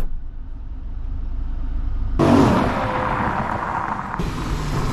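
A low rumble for the first two seconds. Then, about two seconds in, the BMW M3's V8 engine runs as the car drives slowly up.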